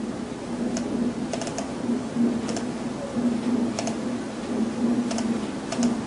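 Computer mouse clicking, single clicks and quick double and triple clicks about once a second, over a steady low hum.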